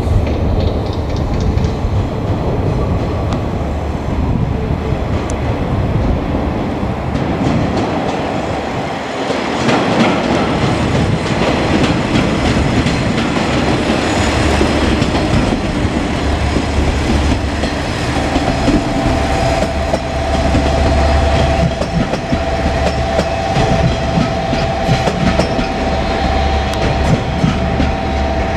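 KiHa 47 diesel railcars running, with diesel engine rumble and wheels clacking over rail joints. About two-thirds of the way in, a steady two-note tone joins the train noise.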